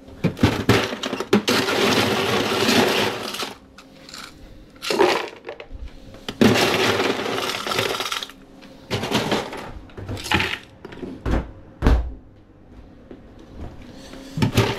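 Blender crushing ice in several pulses, a rattling crunch: a long run at first, then shorter bursts, with two dull knocks near the end.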